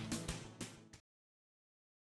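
Background music with a steady beat, fading down and cutting off to silence about a second in.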